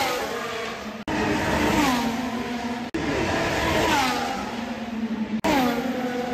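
Formula 1 cars' 1.6-litre turbocharged V6 engines running at speed along the track, the engine note falling in pitch several times. The sound breaks off abruptly about a second in, about three seconds in and again near the end, where short clips are spliced together.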